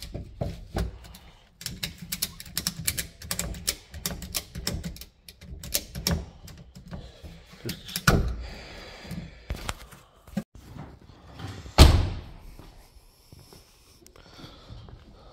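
Quick clicks and metallic rattles of hands and tools working on battery terminals and wiring in a car's boot, followed by heavier thuds, the loudest about twelve seconds in, as a car door is shut.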